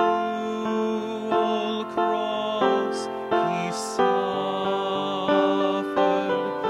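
Upright piano playing a slow hymn accompaniment, with a man singing along into a microphone.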